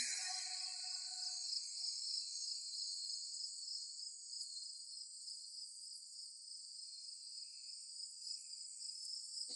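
Steady, high-pitched chorus of insects. The last notes of a music cue fade out within the first two seconds.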